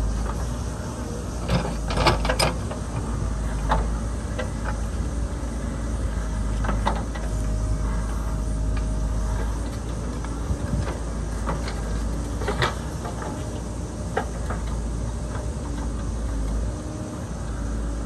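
JCB backhoe loader's diesel engine running steadily while it digs, with a scatter of sharp knocks from the arm and bucket, loudest about two seconds in and again past the middle.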